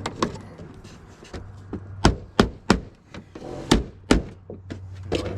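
Hammer blows, a series of sharp, irregular strikes, the loudest clustered in the middle of the stretch, as nails are driven while metal roofing trim is fastened.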